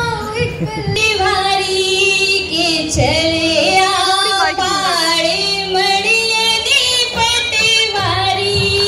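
A woman singing live into a microphone, in long held notes that bend and waver in pitch, over a low, steady instrumental accompaniment.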